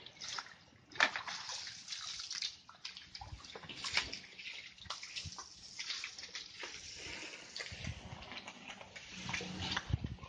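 Water splashing and sloshing on a concrete cow-shed floor as it is washed down, with a loud splash about a second in as water is thrown out of a container.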